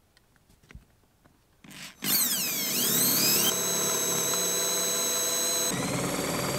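Electric drill boring holes in the boat's cabin top and through a teak block. Light handling clicks for about two seconds, then the drill starts with a sweeping whine as it comes up to speed and runs at a steady high whine. Its pitch shifts a little near the end.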